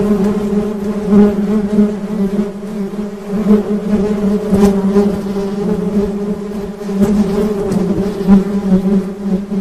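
Honeybees buzzing: a steady low drone of wingbeats that swells and dips slightly.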